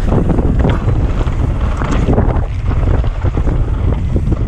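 Wind buffeting the microphone of a camera on a mountain bike's handlebars during a fast downhill run, over the rumble of knobby tyres on a dirt trail and irregular clatters from the bike.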